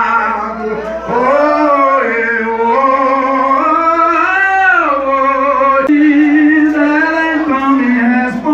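A man singing in long, drawn-out notes that slide up and down in pitch, phrase after phrase.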